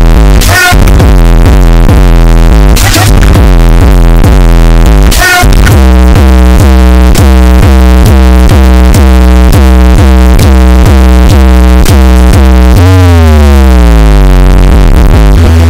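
Heavily bass-boosted electronic music played at maximum level and distorted: a pulsing synth bass line with crash-like noise hits in the first few seconds, then a fast, regular repeating pulse, and a falling pitch sweep about thirteen seconds in.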